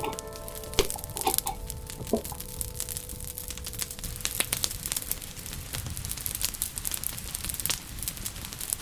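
Wood fire crackling in a fireplace: irregular sharp pops and snaps over a soft hiss. A few held musical notes ring in the first couple of seconds and fade away.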